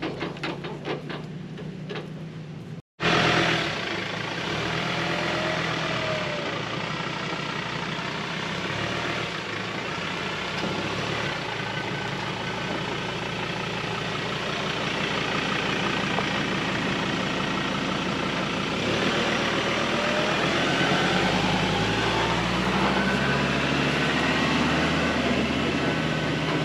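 4WD ute's engine running under load as it tows a heavy boat trailer through soft sand, over a steady rush of tyre and track noise. The sound cuts out briefly about three seconds in, and near the end the engine note changes in steps.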